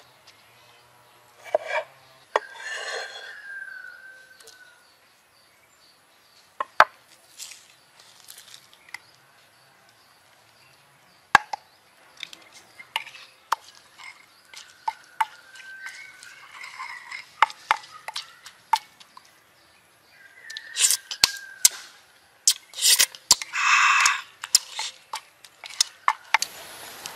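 Wooden pestle knocking and grinding in a wooden mortar, crushing chillies, garlic, green onion and tomato, with sharp irregular knocks. Near the start a knife cuts through tomato onto a wooden board.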